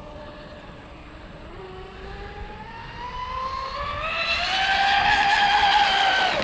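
RC speedboat making a full-throttle speed pass: a high-pitched motor-and-propeller whine that climbs in pitch and grows louder over about three seconds, holds at its loudest, then drops away sharply near the end.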